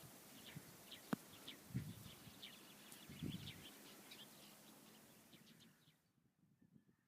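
Faint chorus of small songbirds chirping, many short high calls overlapping, with a sharp click about a second in and two soft low thuds; the sound fades out to near silence about six seconds in.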